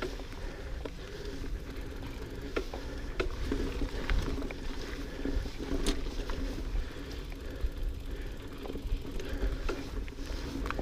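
GT Aggressor Pro mountain bike riding a dirt trail: a steady low rumble of tyres rolling, with scattered sharp rattles and clicks from the bike over bumps.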